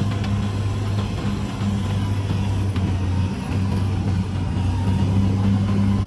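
Caterpillar D6R crawler bulldozer's diesel engine running steadily, a low drone that dips briefly a few times.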